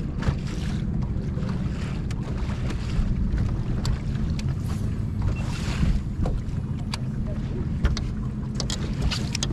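Wind rumbling on the microphone aboard a fishing boat, with water moving around the hull and scattered small clicks and knocks.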